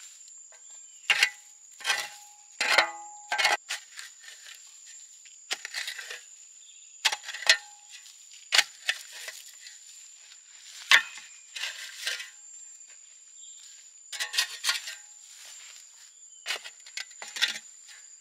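Metal garden spade digging into compost and dry straw: irregular crunching, scraping strikes, one or two at a time with short pauses, over a steady high-pitched whine.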